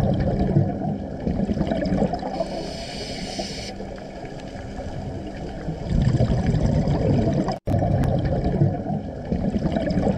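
Underwater ambient sound picked up by a diving camera: a muffled rushing and gurgling of water, growing louder about six seconds in, with a brief dropout about seven and a half seconds in.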